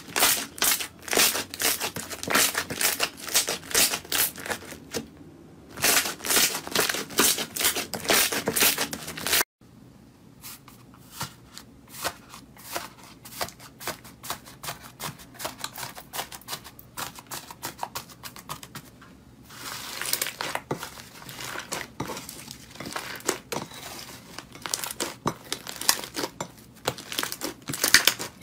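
Hands pressing and stretching slime, full of crackling air-bubble pops and sticky tearing sounds in loud clusters. About nine and a half seconds in it cuts to a blue textured slime being poked and squished, with quieter crackles that grow louder again later on.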